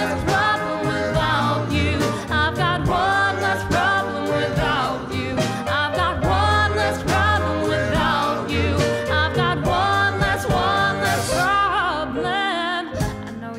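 Background song: a singing voice over an instrumental backing with bass and a steady beat.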